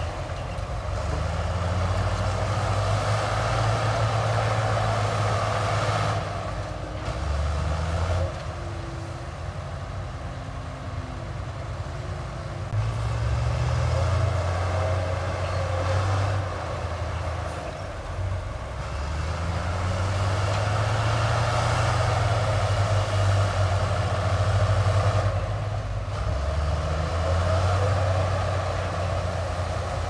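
Heavy diesel engine of working machinery running. It rises and falls in load and pitch every few seconds.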